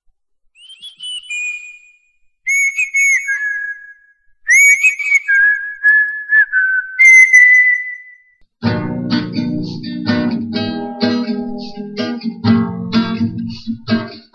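Instrumental break of a song: a solo whistled melody in short sliding phrases. About eight and a half seconds in, strummed guitar accompaniment comes in with a steady rhythm.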